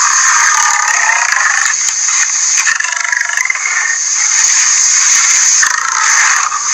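A loud, harsh roaring hiss, steady in level with a wavering, rough texture and no clear pitch.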